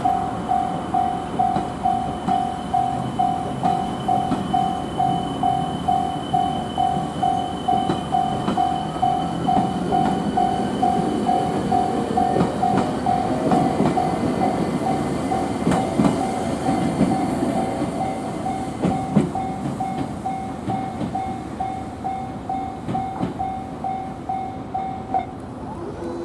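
Japanese level-crossing warning bell ringing about twice a second, stopping shortly before the end, over the running noise of a JR Freight M250 Super Rail Cargo electric freight train on a shunting move, with a few sharp clicks from the wheels.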